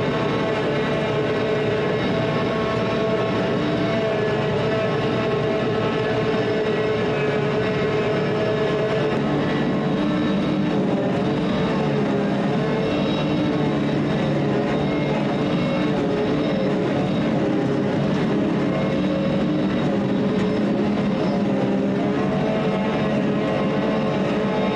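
Heavy farm machinery engine running steadily during hay chopping, its note shifting about ten seconds in.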